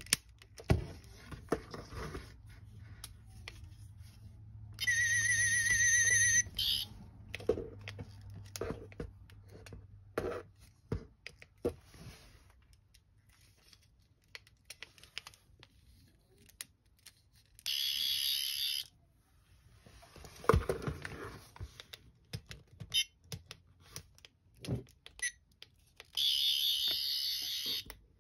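Toy sonic screwdriver's electronic sound effect from its small speaker: a high, warbling whine in three short bursts, about five seconds in, near the middle and near the end. Between them come sharp plastic clicks and clacks as the toy and its claws are handled.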